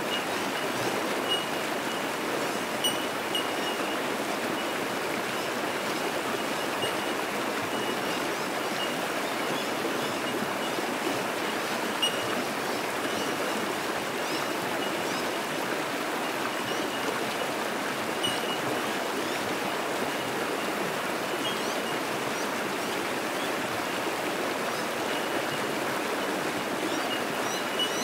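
Creek water rushing steadily over rocks in shallow rapids. Bell miners (bellbirds) give short, high, single 'tink' notes about once a second in the background.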